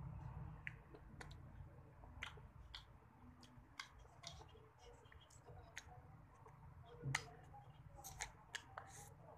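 Close-miked mouth sounds of eating ice cream off a stick: irregular small wet clicks and smacks from licking and nibbling, with a louder smack about seven seconds in, over a steady low hum.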